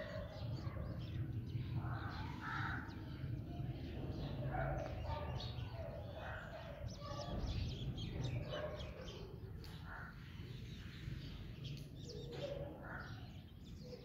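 House sparrows chirping, a continuous run of short chirps over a steady low background rumble.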